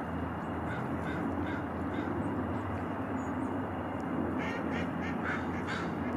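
Short, quack-like animal calls: a few scattered ones, then a quick run of about six about four seconds in. Under them is a steady low rumble.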